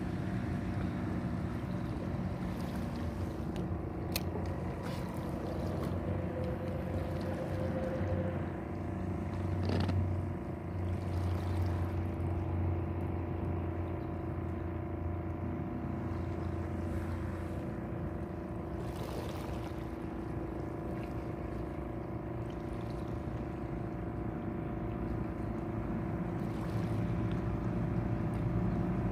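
Steady drone of a boat engine running on the water, its pitch unchanging throughout, with a sharp click about four seconds in and another near ten seconds.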